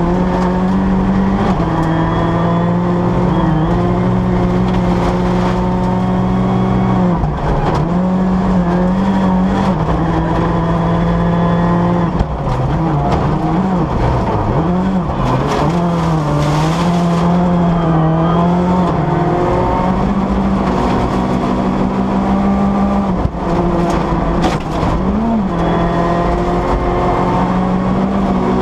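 Ford Fiesta rally car's engine at high revs, heard from inside the car, holding a steady pitch with short drops and wavers as the driver shifts and lifts for corners. A few sharp knocks come through about halfway and again near the end.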